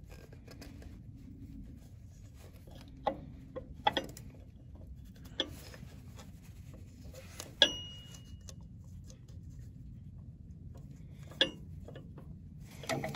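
Small clicks and taps from hands fitting a rubber lip seal onto the steel drive shaft of a diesel injection pump, about five in all. The loudest, near the middle, has a brief metallic ring after it. A low steady rumble runs underneath.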